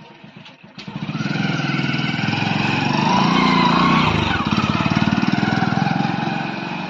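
Hero motorcycle's small single-cylinder engine starting up about a second in, then running and revving as the bike pulls away, loudest in the middle and easing off near the end.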